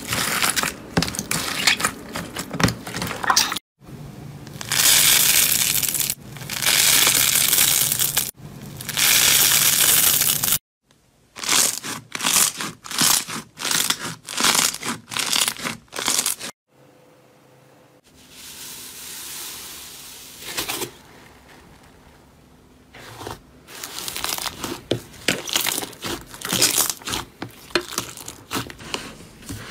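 Hands squeezing, poking and pressing slime, giving dense runs of crackling and popping with squelching in between. It comes in several short takes that break off abruptly, with a softer, quieter stretch in the middle.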